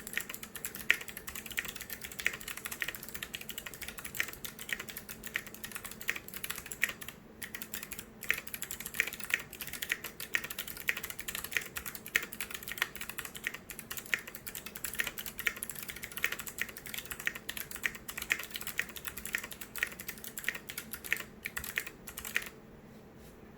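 Continuous fast typing on a TMOV2 50% custom mechanical keyboard with clicky Kailh Box White switches: a dense stream of sharp key clicks, with a couple of brief pauses. The typing stops near the end.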